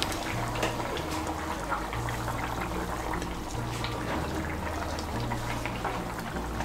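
Thin curry gravy bubbling at a simmer in a pan, with many small scattered pops.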